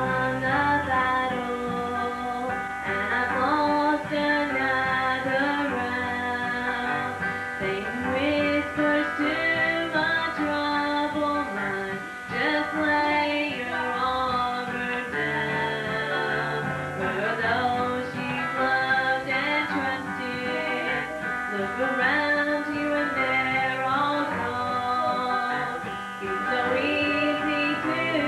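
Live gospel music: acoustic guitar strumming under a sustained, shifting melody.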